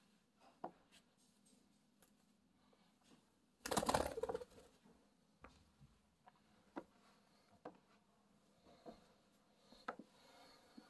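Faint scattered ticks and scratches of a budgie and a person's hands moving on a shag carpet, with one brief, louder rustling flurry about four seconds in.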